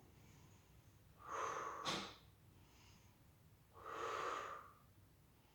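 A woman's deep breaths through the nose: two long breaths, one about a second in and one about four seconds in.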